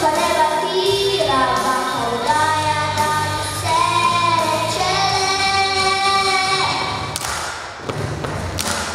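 Children singing a song together over amplified instrumental accompaniment. Near the end the music thins briefly and a couple of thuds come through.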